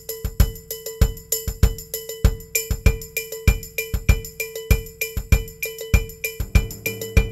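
Background music: a percussion-led track with a steady fast beat, about three hits a second.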